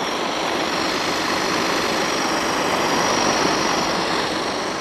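Radio-controlled vehicle's electric motor running steadily, a continuous hiss with a thin high whine above it.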